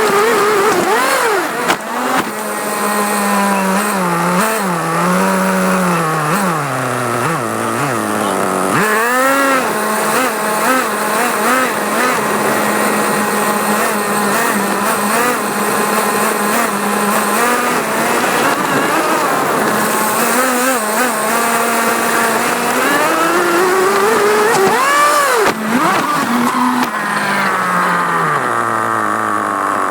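RC car's motor running and being driven, its whine rising and falling in pitch again and again with the throttle.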